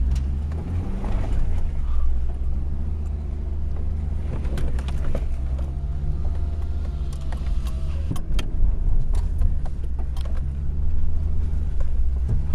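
A Hummer H3's engine runs low and steady as the truck crawls over rocky trail, with scattered knocks and clicks from rocks and the running gear.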